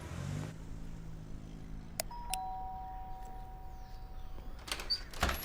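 Two-tone ding-dong doorbell chime: a higher note about two seconds in, then a lower one right after, both ringing on for about two seconds. A few short noises follow near the end.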